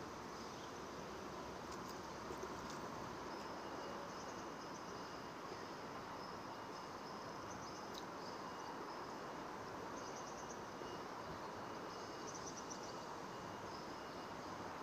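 Steady outdoor background noise with faint insect chirping: short high trills that come and go, over a faint steady high tone.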